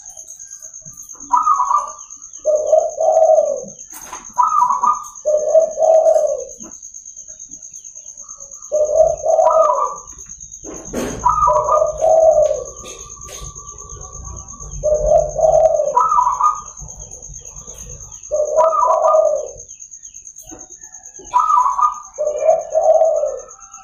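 Zebra dove (perkutut) singing its cooing song over and over: each phrase opens with a short higher note and runs into lower, rolling coos, repeated about every two to three seconds.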